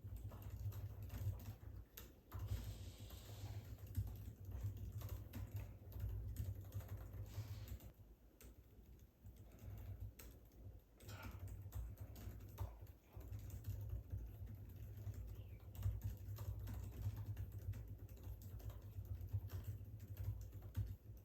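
Fast, continuous typing on a 2021 MacBook Pro 14-inch scissor-switch keyboard: rapid key clicks at touch-typing speed, with a short lull about eight seconds in.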